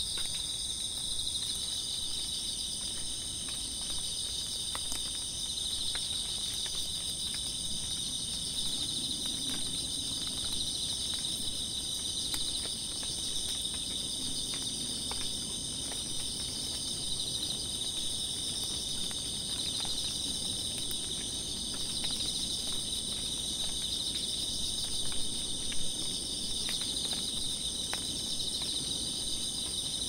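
Chorus of singing insects, several kinds trilling steadily at different pitches at once. Faint scattered ticks of light rain fall among them.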